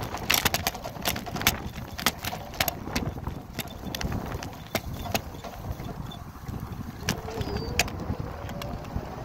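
Bicycle rattling and clunking as it rides over bumpy dry grass and onto a cracked asphalt path: irregular sharp knocks, thickest in the first three seconds and again near the end, over a steady rumble of tyres and wind on the microphone.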